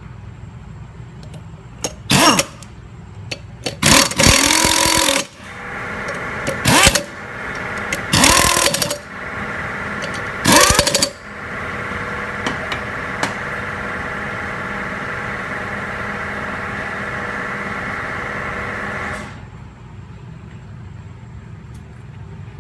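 A power tool running in the five compensator bowl bolts in five short bursts, each with a quick rise and fall in pitch. A steady machine hum starts partway through and cuts off about three-quarters of the way in.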